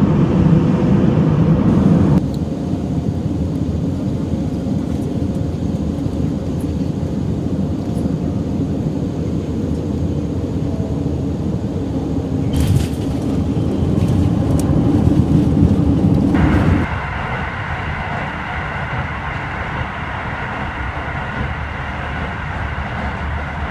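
Steady running noise from inside moving vehicles, changing abruptly twice: a jet airliner's cabin noise for the first two seconds, a steady rumble through the middle, and a train carriage's running noise with a few steady high tones over the last seven seconds.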